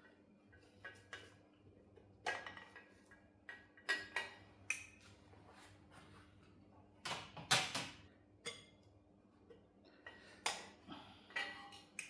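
Metal engine parts and hand tools clinking and knocking against each other while an engine is being taken apart: a string of irregular sharp taps with short metallic rings, loudest in a quick cluster about seven seconds in.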